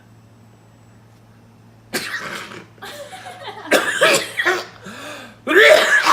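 A man coughing in several loud bursts, the first about two seconds in and the loudest near the end, with voiced sounds between them.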